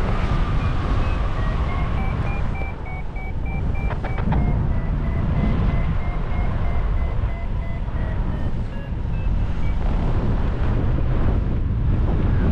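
Wind buffeting the microphone in a steady rumble. A faint run of short high beeps at two pitches runs through most of it and stops a little before the end.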